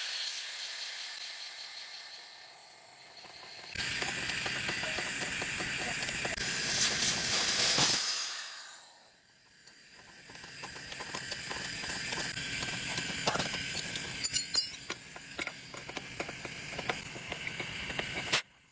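Car-repair workshop sounds: a hiss early on, then from about halfway a long run of small irregular mechanical clicks, like a ratchet wrench being worked.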